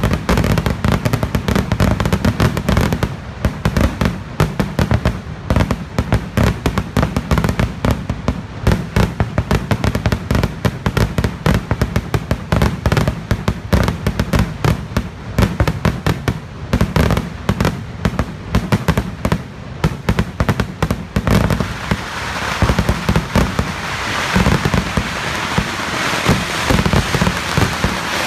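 A festival fireworks display going off as an unbroken, rapid barrage of firecracker bangs. About three-quarters of the way through it turns to a denser, hissing crackle.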